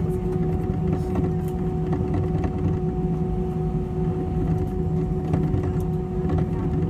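Cabin noise of an Airbus A320-214 taxiing, heard from a seat over the wing: its CFM56 engines at idle under a steady hum and low rumble, with a few faint clicks.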